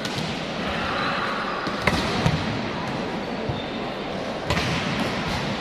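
Volleyballs being struck and bouncing on a wooden court during a team warm-up in a large indoor sports hall, with a couple of sharp thuds about two seconds in over a steady background of players' voices and hall noise.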